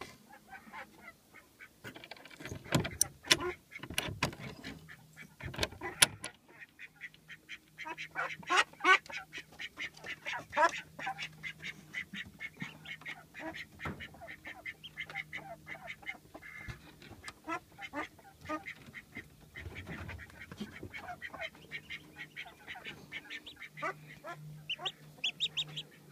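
Ducks calling repeatedly, with several loud knocks from the wooden nest box being opened in the first few seconds. A newly hatched duckling gives a quick run of high, rising peeps near the end.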